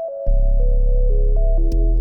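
Background music on synthesizer keys: a slow falling line of held notes over a steady bass that comes in about a quarter second in.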